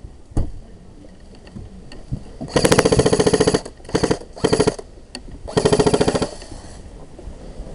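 Airsoft electric rifle (Tokyo Marui G3) firing on full auto in rapid bursts: a burst of about a second, two short bursts, then another burst of under a second. A single knock comes shortly before them.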